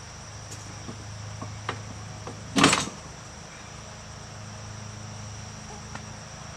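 Crickets chirping steadily, with a few light clicks of handling and one short, loud knock about two and a half seconds in.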